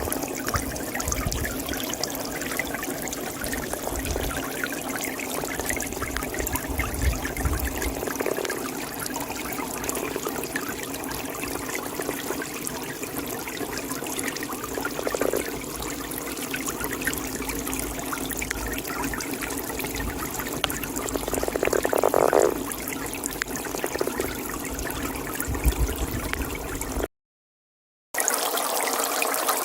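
A toad croaking a few times over steadily trickling pond water, the loudest call coming about two-thirds of the way through. The sound cuts out for about a second near the end before the water resumes.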